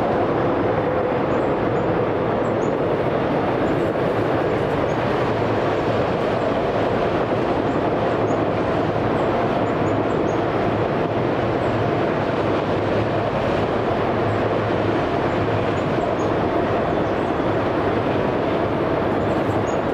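Freight train of autorack cars rolling past, a steady rumble of wheels on rail.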